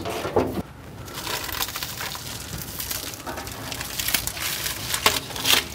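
Clear plastic packaging wrap crinkling and rustling as it is handled and pulled off, with many small crackles and clicks.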